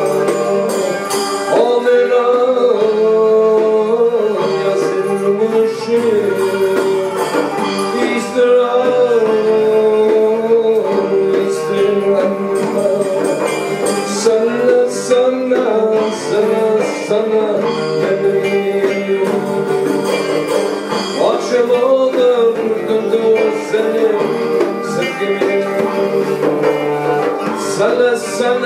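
Live Middle Eastern band music from a small acoustic group with oud and upright bass: a wavering melody over a steady low note, playing without a break.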